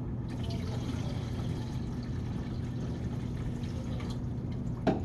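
Photographic fixer being poured from a measuring cup into a film developing tank, a steady pour lasting about four and a half seconds. A short knock comes near the end.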